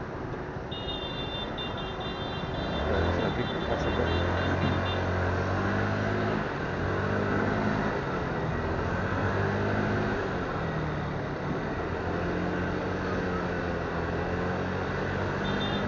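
Motorcycle engine running at low speed in slow town traffic, picking up about three seconds in and then rising and falling in pitch with the throttle.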